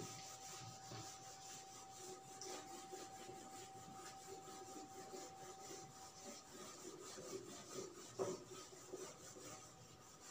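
Whiteboard being wiped clean with a felt duster: faint rubbing strokes against the board, with a brief thump at the start and another about eight seconds in.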